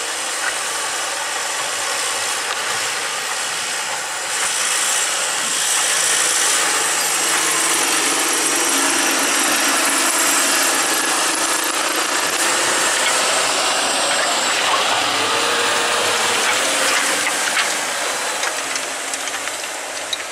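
John Deere tractor's diesel engine running under load while pulling a disc harrow through soil, with the steady hiss and rattle of the working implement. It grows louder about four to five seconds in and eases off near the end.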